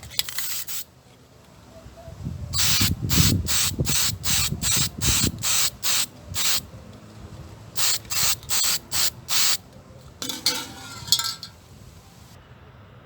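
Aerosol spray-paint can sprayed in a series of short bursts, about a dozen, each well under a second, with brief pauses between them.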